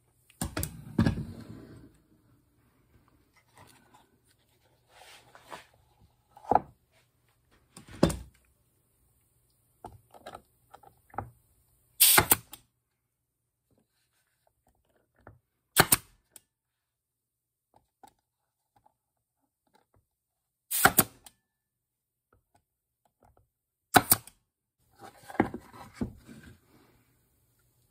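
18-gauge staple gun driving 1-inch staples through a plywood base into plywood cleats: about five sharp shots a few seconds apart. Between them are lighter clicks and knocks of the board being handled on the workbench.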